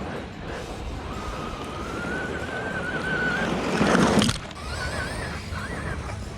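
Electric whine of a 6S brushless motor driving a 2WD Traxxas Slash RC truck, rising slowly in pitch as it accelerates. Just before four seconds a loud, brief rush of noise, the tires spraying gravel or the truck landing, and then the whine comes back, wavering up and down with the throttle.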